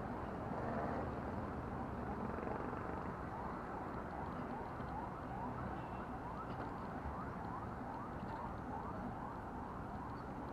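A faint siren yelping in short rising sweeps, about two a second, over a steady low background rumble.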